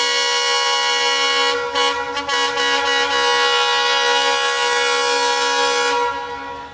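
Diesel locomotive's air horn sounding one long, steady blast that wavers briefly about two seconds in and stops about six seconds in.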